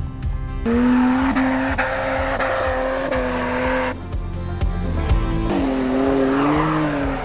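4x4 engines working hard under load as the vehicles climb a steep sand dune, with a held engine note that drops away about four seconds in and returns, over background music.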